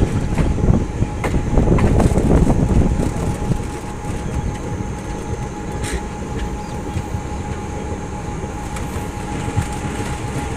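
Passenger train running along the track, a steady rumble of wheels on rail with a few sharp clicks. The rumble is louder for the first few seconds, then settles.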